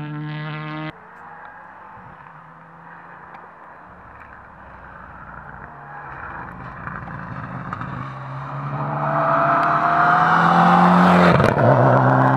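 Mitsubishi Lancer Evolution X rally car's engine, faint at first, then coming closer and growing loud over the last few seconds with its pitch rising as it accelerates, and passing close near the end. At the very start another engine note cuts off abruptly about a second in.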